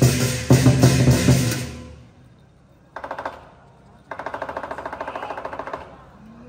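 Lion dance drum and cymbals beating a loud rhythm that breaks off about two seconds in. After a short gap there is a brief fast rattling roll, then a longer fast roll of under two seconds.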